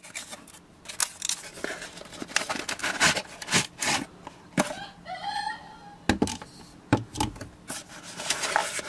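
A cardboard box being opened by hand and a battery charger with its clip cables being slid out of it: a run of sharp clicks, taps and rustles, with a brief squeaky rub about five seconds in.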